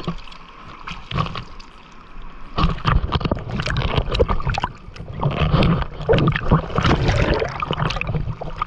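Sea water lapping and splashing against a surfboard, then from about two and a half seconds in, a breaking wave's whitewater washing over the board and dousing the camera's microphone in loud, churning splashes.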